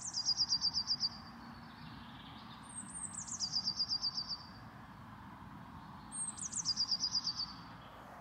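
A small songbird singing the same short song three times, about three seconds apart: each song opens with a couple of very high notes and drops into a quick run of repeated notes lasting about a second. A faint steady hiss lies underneath.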